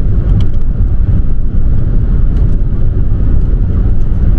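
Car driving on the road: a steady, loud low rumble of engine and tyre noise.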